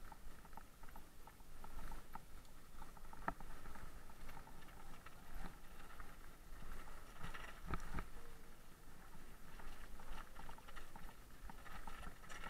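Mountain bike rolling down a dirt and gravel trail: irregular clicking and rattling of the bike over bumps and tyres on loose gravel, over a steady low rumble.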